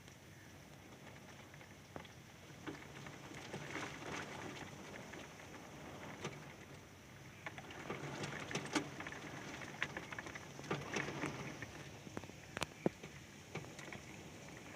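Hurricane wind and rain, swelling in two gusts, with many sharp ticks of rain striking a surface.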